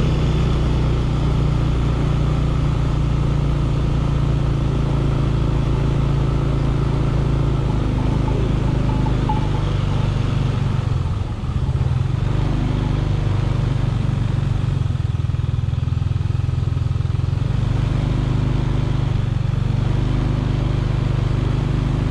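Motor vehicle engine running steadily close by, its low note shifting slightly a few times, with a brief drop about halfway through.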